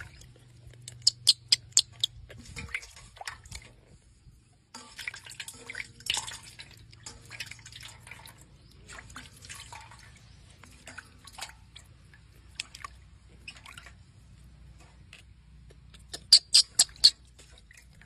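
Water splashing and dripping in a stainless-steel bowl as a baby monkey is washed by hand. Two quick runs of about six sharp, loud clicks come about a second in and again near the end.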